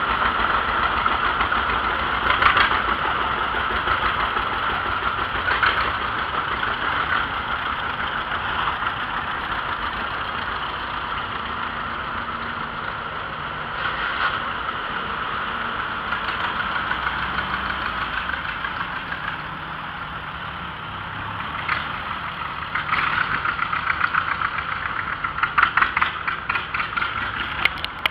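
Old farm tractor engines running as a line of tractors drives past one after another: two-cylinder John Deere tractors first, then a Jeep. The loudest pulsing engine comes near the end, from an Oliver 77 pulling a wagon.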